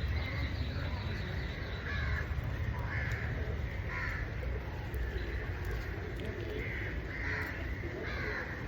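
Crows cawing repeatedly, short calls coming every second or so, over a steady low background rumble.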